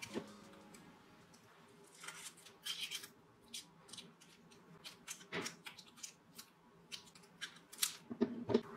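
Close handling sounds as sandpaper is fitted onto a slotted mandrel in a flex shaft handpiece's collet: the paper rustles and crinkles, and the mandrel and collet give light metal clicks and scrapes, with a cluster of clicks near the end.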